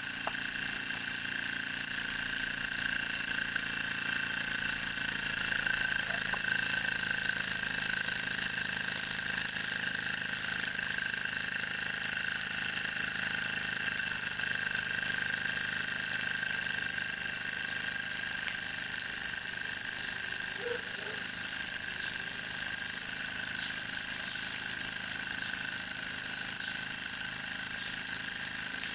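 Miniature brass steam engine with a spring-loaded oscillating cylinder running steadily at speed: an even, fast whirr over a constant hiss.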